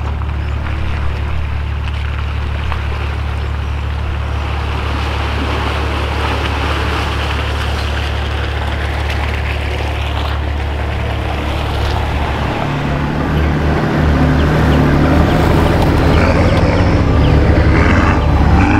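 Four-wheel-drive vehicle's engine running as it drives along a bush track: a steady low drone with rumbling road and wind noise over it, the engine note turning rougher and louder in the last several seconds.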